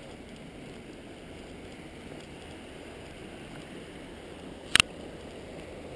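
River rapids running, a steady low rush of water. A single sharp click cuts in briefly near the end.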